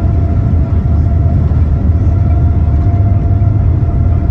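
Steady cabin noise of a Boeing 787-9 with its Rolls-Royce Trent 1000 engines running: a loud, even low rumble with a faint steady tone above it.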